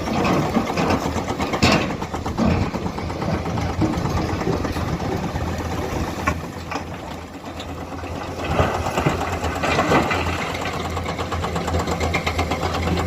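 Komatsu hydraulic excavator's diesel engine running steadily, easing off briefly about seven seconds in and picking up again, with a few sharp knocks on top.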